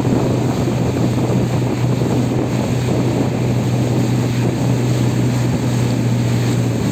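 Motorboat engine running steadily under way, with water rushing past the hull and wind on the microphone. The engine note drops away at the very end.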